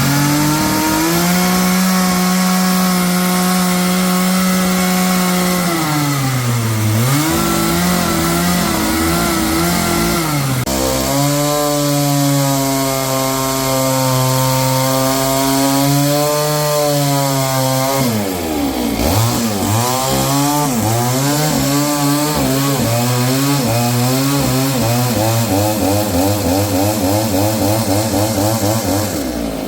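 A motor-driven saw cutting wood at high revs. Its engine pitch holds steady, sags twice as it labours in the cut, and wavers up and down before settling again.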